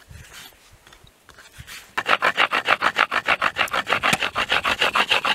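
A wooden board rubbed rapidly back and forth over a wad of cotton lying on another board. It makes a fast, even scraping rub, about nine strokes a second, starting about two seconds in. The friction is meant to heat the cotton to an ember for lighting a fire.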